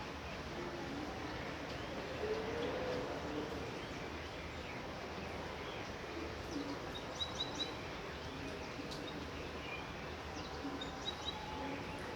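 Steady light rain hiss, with a bird chirping in short high runs about seven seconds in and again near the end.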